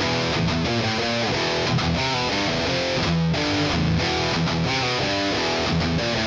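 Intro music: a rock track with distorted electric guitar playing quick, changing notes at a steady loudness.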